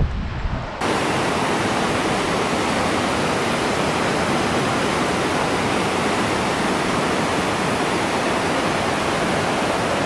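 Steady rush of whitewater rapids on the Sacandaga River, cutting in abruptly about a second in; before that, a brief low wind rumble on the microphone.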